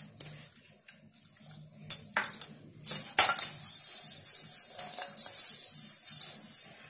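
Wheat flour being rubbed and swirled around inside a greased steel pot. Hands and the pot knock and clink against the metal, loudest about three seconds in, and from then on there is a steady gritty hiss of flour moving over the steel.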